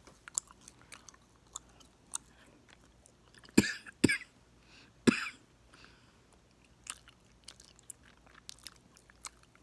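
Gum chewed close to the microphone, with soft wet clicks and smacks throughout and three louder pops between about three and a half and five seconds in, as the gum is snapped.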